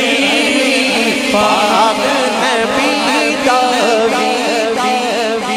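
Instrumental or backing interlude in a live manqabat performance: a steady held drone under an ornamented, wavering melody line, with no lead vocal.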